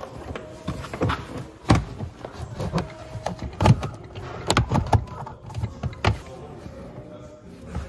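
Irregular clicks and knocks of plastic interior trim and a small connector being handled under a Mercedes C-Class W204's dashboard, as the glovebox lamp is plugged in and the glovebox trim refitted.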